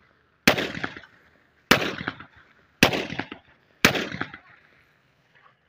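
Four single shots from a Pakistani-made 30 bore (7.62x25mm) pistol built in the shape of an M4 carbine, fired about a second apart, each shot trailing off in a short echo.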